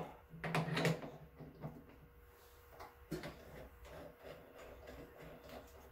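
A steel 40-taper tool holder being fitted up into a milling machine's spindle: a few light metal knocks and scrapes, about half a second in and again near three seconds.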